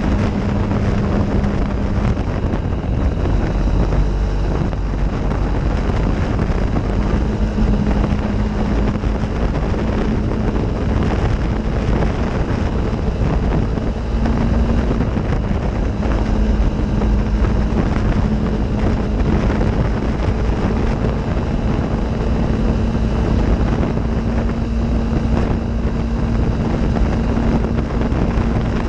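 Off-road vehicle engine running at a steady cruising speed while riding a gravel road, its pitch holding nearly level with a couple of brief dips, under wind buffeting the microphone and the rumble of tyres on gravel.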